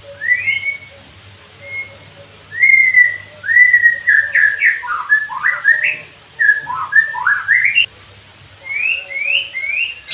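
White-rumped shama (murai batu) singing: a run of clear whistled notes sliding up and down, loudest through the middle, ending with three short rising whistles.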